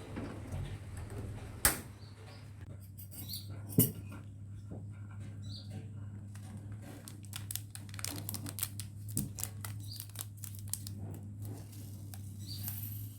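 Scattered clicks and taps over a steady low hum, with two sharp knocks about two and four seconds in and a quick run of clicks in the second half; short high chirps recur every few seconds.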